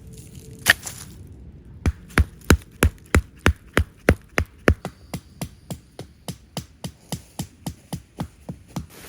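A rapid, even series of hard strikes, about three a second, like hammering or chopping at a campsite: a single sharp knock first, then around ten heavy thudding blows that give way to lighter, steady ones.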